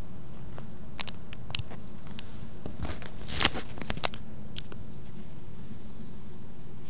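Phone being handled close to its microphone: a few scattered clicks and a rubbing scrape a little past the middle, the loudest, over a steady low hum.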